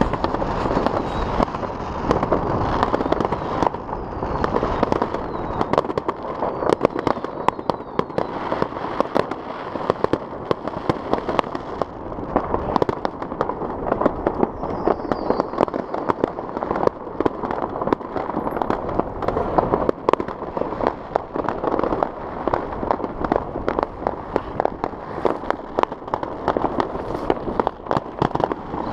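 New Year fireworks salvos going off all over the city: a continuous crackle of many overlapping bangs, some louder, some fainter.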